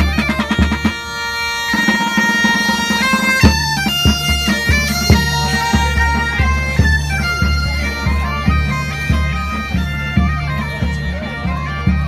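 Galician bagpipes (gaitas) playing a folk melody over a steady drone. A marching snare drum and a bass drum beat time underneath, most clearly from a few seconds in.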